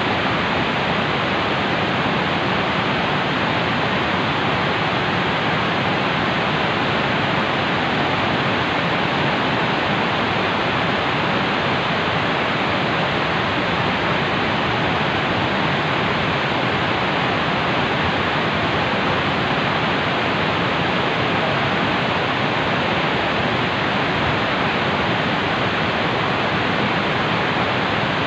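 Steady rush of a swollen, muddy river flowing at a dam: an even, unbroken sound of running water.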